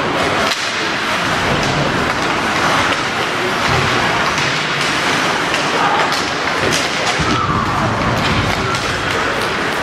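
Ice hockey game in an arena: a steady wash of skates on ice and crowd noise, broken by several sharp knocks of sticks, puck and boards.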